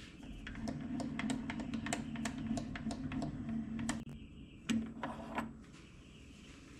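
Quick light metallic clicks and taps from a dial indicator and its holder being handled and taken off at a lathe's tool post. A low steady hum runs under them and stops about four seconds in, then comes back briefly with more clatter about a second later.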